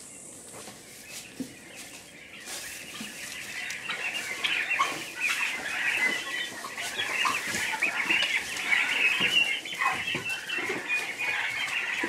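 A flock of young Big-6 broad-breasted white turkeys peeping and chirping together in many short overlapping calls, growing louder a few seconds in and staying busy.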